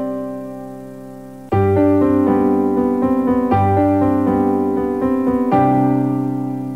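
Piano music playing between station call-sign announcements at a radio sign-on. A held chord fades, a quick run of notes starts about a second and a half in, and another chord is struck near the end and rings on.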